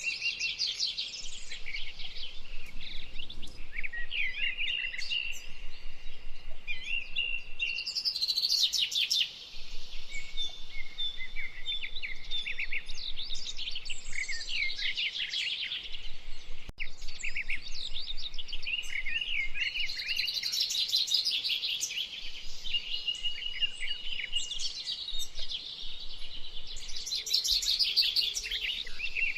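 A dense chorus of many birds chirping, calling and trilling over one another, with a steady high-pitched trill held underneath much of the time.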